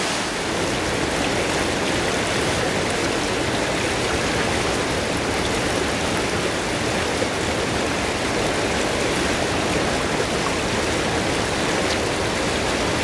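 Treated wastewater rushing and churning through a concrete effluent channel: a steady, even rush of water.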